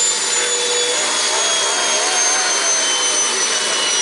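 Leaf blower forcing air down a pipe into a barrel wood stove: a steady loud rush of air with high whining tones that slowly fall in pitch, and a lower tone that wavers about a second in.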